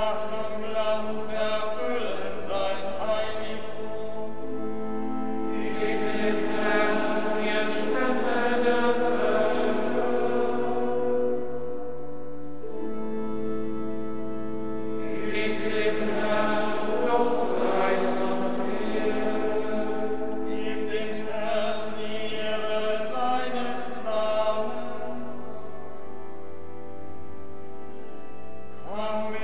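Choir of Benedictine monks singing Vespers chant in German, phrase by phrase with short pauses, over sustained organ accompaniment in a large, echoing church.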